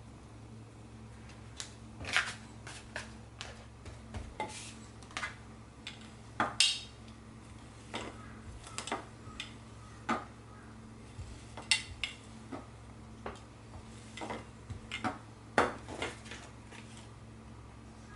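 Irregular light clicks and taps of kitchen tools and a baking tray against a work surface, with a few sharper knocks.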